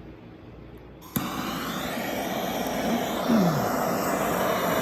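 Handheld gas plumbing torch lit with a sharp click about a second in, its flame then burning with a steady rushing hiss while heating a copper pipe fitting for soldering.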